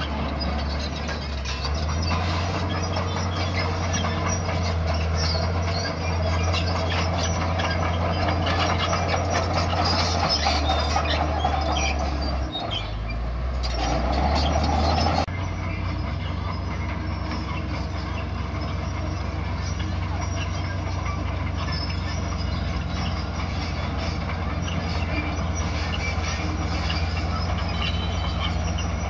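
Crawler bulldozer's diesel engine running under load as it pushes soil, its steel tracks clattering and squealing. The engine note shifts up and down several times.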